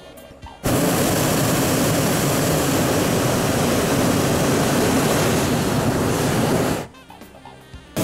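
Hot air balloon's propane burner firing in one long, loud blast of about six seconds, starting suddenly about a second in and cutting off suddenly near the end.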